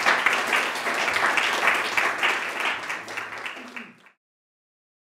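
Audience applauding, many hands clapping, thinning out and then cut off suddenly about four seconds in.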